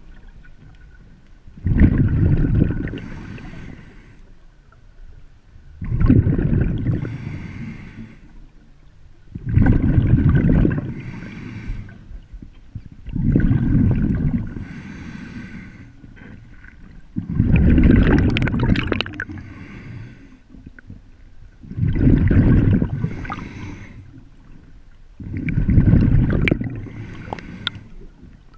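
A snorkeler breathing through a snorkel, heard underwater: a long, noisy breath about every four seconds, seven in all, with gurgling water between them.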